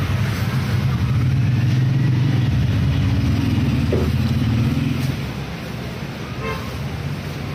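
Motor vehicle engine running close by, a steady low drone that eases off about five seconds in, amid street traffic.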